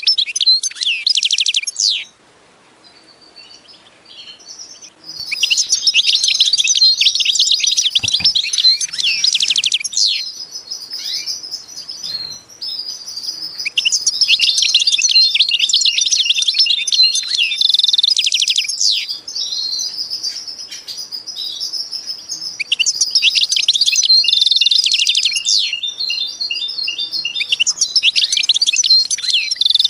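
Small birds chirping and singing in busy, high-pitched twittering with fast trilled runs, broken by a short lull about two seconds in.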